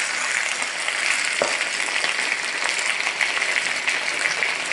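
Duck curry sizzling steadily in a wok, the chunks of duck, pineapple and cherry tomato frying in red curry paste and the oil split out of the coconut milk, stirred with a wooden spatula. One knock sounds about a second and a half in.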